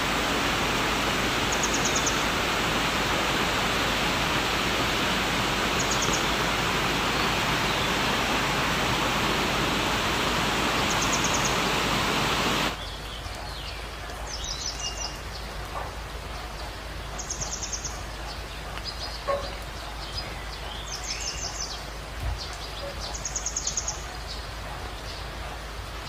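Waterfall and rocky stream rushing with a steady, loud roar that cuts off suddenly about halfway through. After that comes a quieter outdoor background with birds chirping in short, quick trills every couple of seconds.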